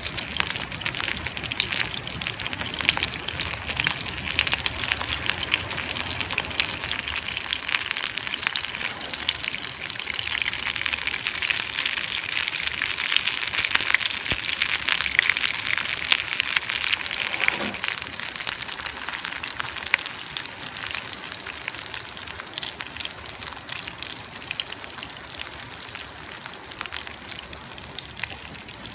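Sardines searing on a grill over a wood fire: a steady sizzle with fine crackling, swelling a little midway and easing near the end.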